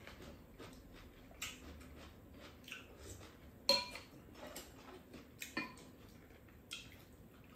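Spoons and chopsticks clinking against ceramic bowls during a meal: scattered light clicks, with one louder ringing clink a little under four seconds in.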